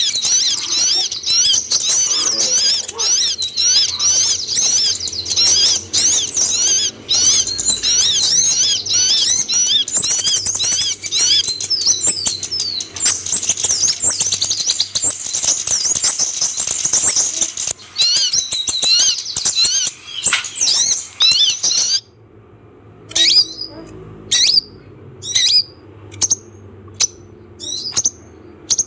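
Recorded song of a kolibri ninja sunbird: a fast, dense stream of high, thin twittering notes that stops abruptly about three-quarters of the way through, giving way to separate sharp high chirps at about one and a half a second.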